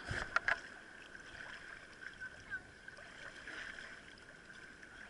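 Seawater sloshing and lapping against a camera held at the surface, with a few short knocks near the start.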